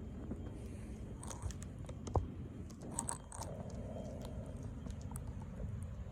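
Outdoor city ambience in a snowstorm: a steady low rumble with scattered crunching clicks and one sharp knock about two seconds in.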